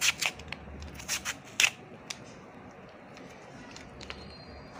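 Raw potato being sliced thin on a plastic hand slicer: about five crisp, quick cutting strokes in the first two seconds, then it goes quiet.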